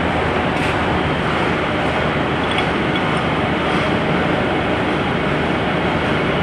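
A metal-turning lathe running with a large roller chucked in it: a loud, steady mechanical din that does not change.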